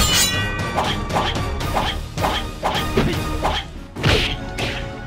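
Fistfight sound effects: a quick run of punch hits and swishes, about two a second, over background music.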